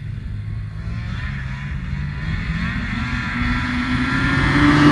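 Snowmobile engine, the Ski-Doo Skandic's 600 EFI two-stroke, running and speeding up, its pitch rising and the sound growing steadily louder as it draws closer.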